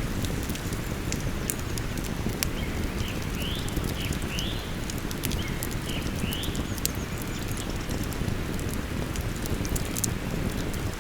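Wood fire crackling with frequent sharp pops over the steady rush of flowing river water. From about two seconds in until about seven, a bird gives a string of short, rising chirps.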